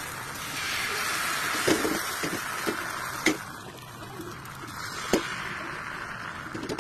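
Thin egg lumpia wrapper batter sizzling steadily in a hot nonstick pan over a gas flame, easing off a little midway. A few sharp clicks come through it, about three in all.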